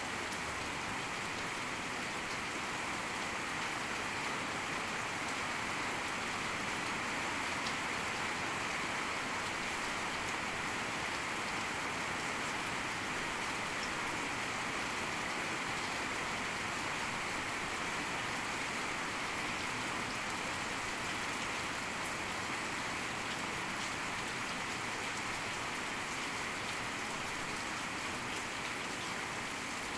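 Heavy rain falling steadily, an even hiss that holds at the same level throughout.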